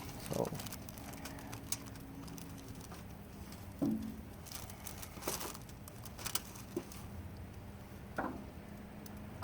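Chicken thighs being handled and set on a grill grate over a wood fire: a few scattered soft taps and crackles, with a faint steady low hum underneath.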